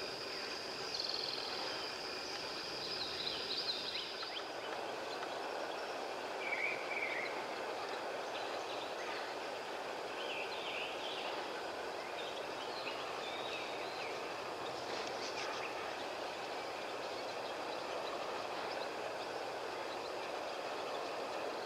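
Steady rushing wind, with a high steady insect drone and a few short bird chirps scattered through it.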